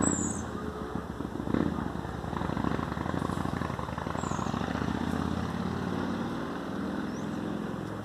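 Street traffic: a motor vehicle's engine hums past, building over several seconds and fading near the end. Two short, high, descending chirps are heard, one at the start and one about four seconds in.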